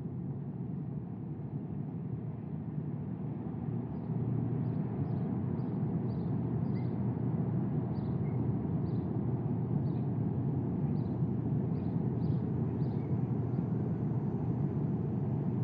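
A steady low rumbling outdoor ambience that grows louder about four seconds in. Over it, faint short high chirps repeat roughly every half second to second.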